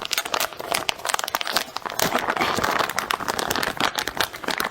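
Dense, close-up crackling and crinkling of food being handled and eaten, with many small clicks packed close together.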